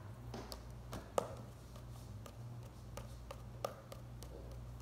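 Homemade slime being kneaded and stretched by hand, giving scattered small clicks and pops, over a low steady hum.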